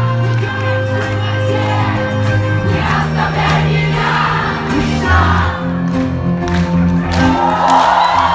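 Live rock band playing, with electric bass guitar under a male lead voice and the audience singing along.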